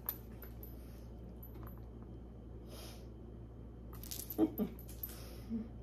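Costume jewelry clinking lightly as it is handled, with a few faint metal clicks and a sharper cluster of clinks about four seconds in, over a steady low hum.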